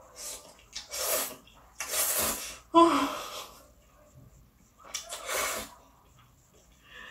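A person slurping instant black bean sauce noodles (Chapagetti) off chopsticks in a series of about five loud, hissing slurps, with a short lull in the middle.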